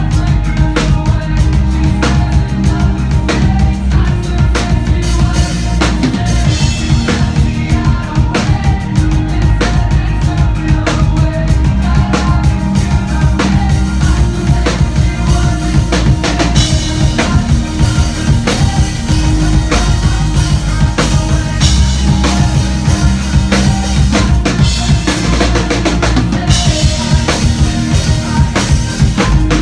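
Live band playing loud, with a steady drum-kit beat of kick and snare over bass, and the cymbals washing in more brightly at a few points.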